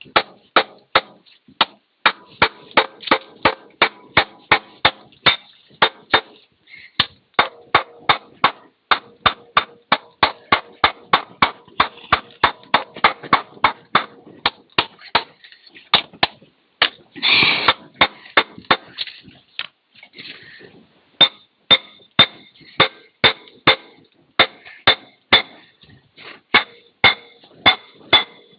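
Hammer blows struck over and over on the steel drive sprocket of a Komatsu PC30-3 excavator's final drive, about two to three a second, each one ringing, to break the sprocket loose from its hub. The strikes pause briefly twice.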